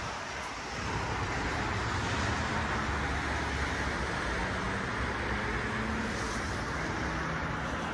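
Steady road traffic noise: a low rumble under an even hiss.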